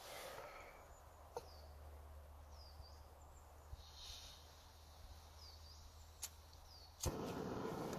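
Screw-on gas canister camping stove being lit: a click about six seconds in, a second click a moment later, and then the burner catches and runs with a steady hiss. Faint bird chirps are heard before it lights.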